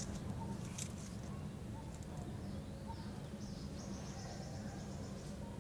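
Outdoor background: a steady low rumble with faint high chirping over it.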